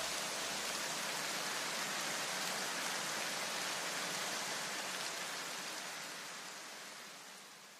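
A faint, steady hiss like rain, which fades away over the last two seconds.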